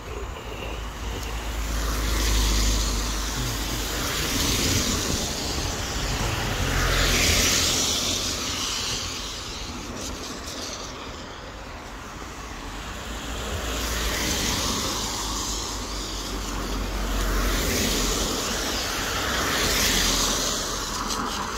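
Cars passing one after another on a wet road, the hiss of tyres on the wet surface swelling and fading about six times.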